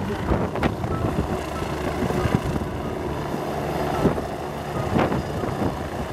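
Bo-105 helicopter hovering close by, its rotor and twin turbine engines giving a steady, dense rushing noise with a few short clicks through it.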